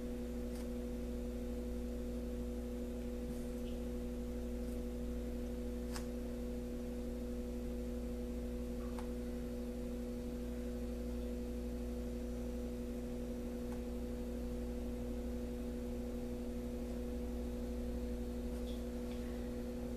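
Steady electrical hum, like mains hum, with a few faint ticks.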